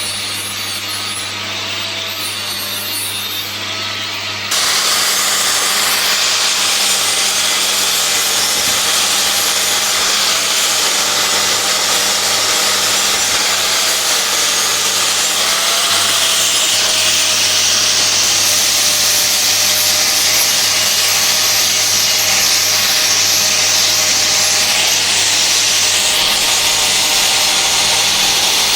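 Angle grinder running against a welded steel frame, grinding it clean, with a steady grinding noise whose motor pitch wavers slightly under load. It gets suddenly louder about four and a half seconds in.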